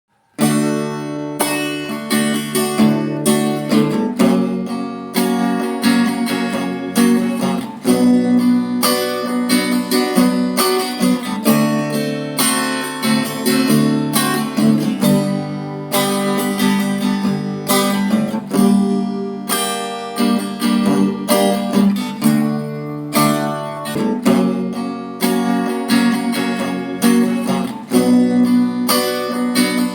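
Background music led by acoustic guitar, plucked and strummed with a steady beat.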